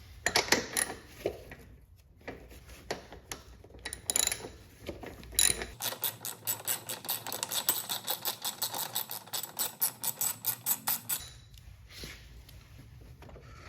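Metal tools and mower wheel parts being handled, with scattered clicks and knocks. About six seconds in comes a run of rapid, even ratchet clicking, roughly seven or eight clicks a second, which lasts about five seconds and stops.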